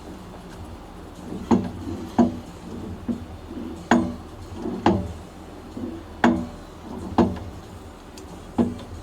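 Metal parts being struck: about eight sharp knocks, irregularly spaced roughly a second apart, each with a brief ringing tone.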